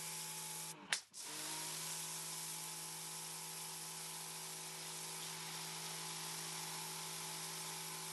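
Ryobi 1500 PSI battery-powered pressure washer running in turbo boost mode: its pump motor hums steadily under the hiss of the water jet hitting concrete. About a second in, the sound cuts out briefly and then starts up again.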